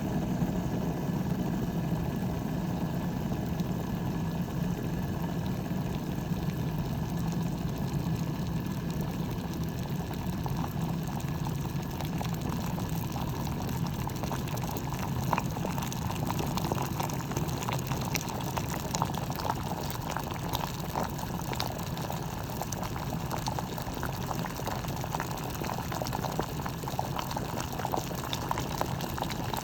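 Bodum stainless-steel gooseneck electric kettle heating water toward the boil: a steady low rumble that fades about halfway through as bubbling and crackling grow.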